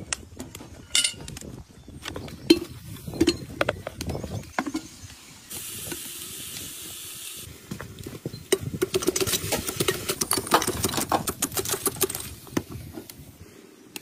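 Cooking at a cast cauldron over a wood stove: scattered knocks and clatters of pot and utensils, a steady hiss for about two seconds in the middle, then several seconds of dense crackling sizzle as the steaming pot is worked.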